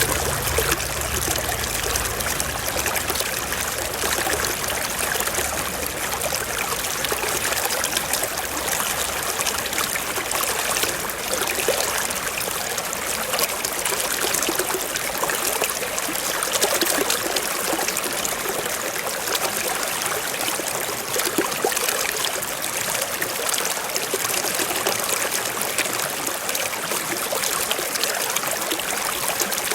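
Small stream running and trickling over rocks, a steady babble of water.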